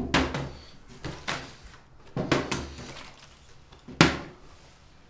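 About half a dozen sharp knocks and thuds in a small room, each fading quickly, the loudest about four seconds in.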